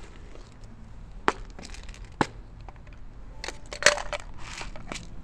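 Crinkling and sharp clicks from handling a bag of dry cat kibble, with the loudest cluster of crackles about four seconds in.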